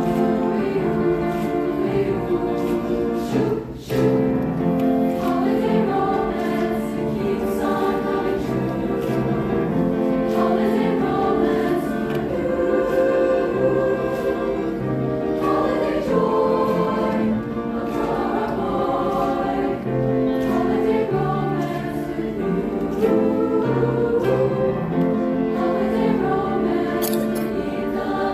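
High school choir singing a choral piece, with many voices holding and moving through chords.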